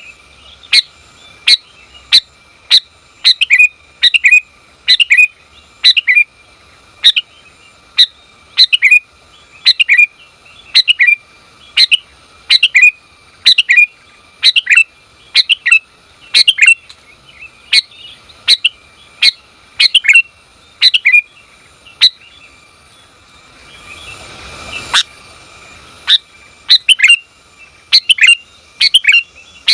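Sooty-headed bulbul (female, as the recording is billed) giving short, sharp chirping call notes over and over, about two a second, to call in a male. The calling breaks off briefly near the end, where a short rising whoosh swells and cuts off, then starts again.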